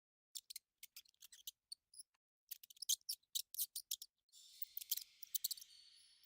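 A swarm of rats squeaking: scattered short, high-pitched squeaks and clicks that come thicker after a couple of seconds, with a steady high hiss of many animals joining in from about four seconds in.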